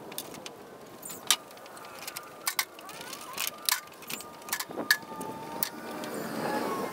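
A broom scraping over the wooden plank deck of a flatbed trailer, with a string of sharp wooden knocks as loose wood strips are picked up and tossed aside. The scraping grows fuller in the last second or so.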